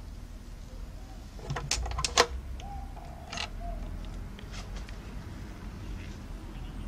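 Metal barrel bolt on a wooden coop door clacking as it is slid back, ending in a sharp click about two seconds in, then light knocks and a brief squeak as the wooden door swings open.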